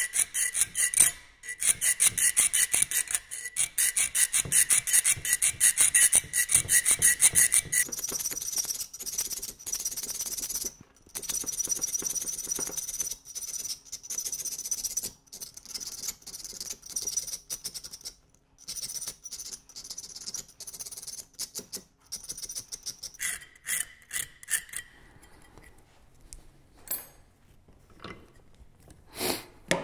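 A thin round file rasping back and forth across the edge of a piece of bandsaw-blade steel clamped in a metal vise, shaping a scratch-stock cutter. It makes quick repeated strokes with a high ringing tone from the thin steel. There are short breaks, and the strokes stop about 25 seconds in, followed by a few light ticks.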